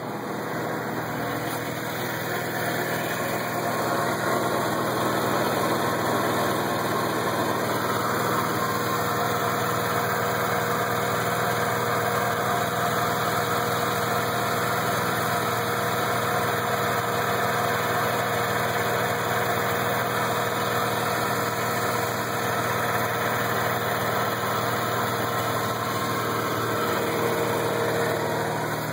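Mazda RX-8's twin-rotor rotary engine idling steadily at an even pitch; the owner asks whether the sound is a bad catalytic converter.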